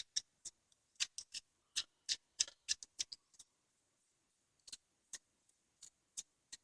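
Faint, irregular small metallic clicks, several a second for about three seconds, then a few scattered ones: a washer and locknut being fitted onto the axle of a Soviet coaster-brake rear hub.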